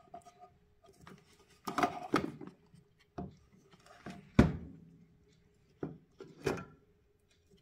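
Hard plastic rubbing, clicking and knocking as a stiff connector on the back of a VW Passat B8 LED headlight housing is worked by hand, in scattered bursts with the loudest knock about four and a half seconds in. The part resists being pulled free.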